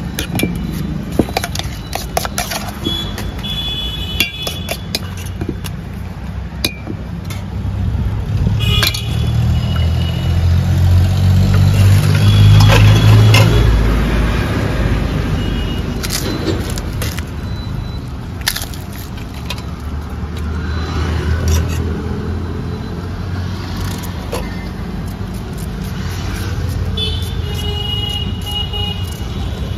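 Roadside traffic rumble, swelling as a vehicle passes about ten to fourteen seconds in, with scattered light clinks of a spoon and utensils against steel bowls and plates.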